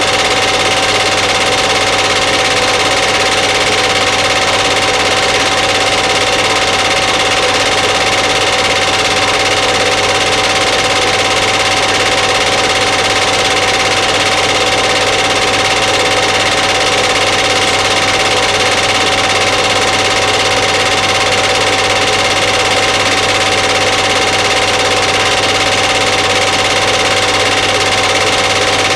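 Steady mechanical running noise with a low hum, hiss and a constant high whine, unchanging throughout.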